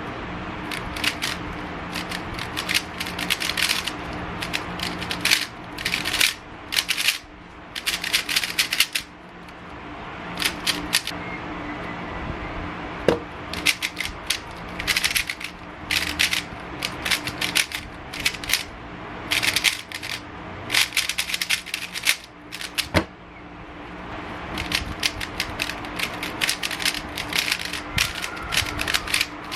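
Plastic speed cube being turned fast during a solve: rapid clicking of the layers in bursts of a second or two, with short pauses between, over a steady low hum.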